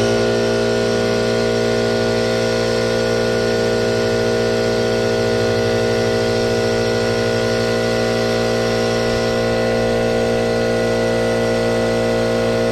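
McGraw 20-gallon oil-lubricated air compressor switched on for its first break-in run, its motor and pump running loudly at a steady, unchanging pitch.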